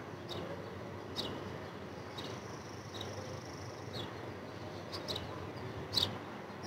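Quiet outdoor ambience with a small bird chirping: short, high, falling chirps about once a second, and a faint high steady trill for a second or two midway.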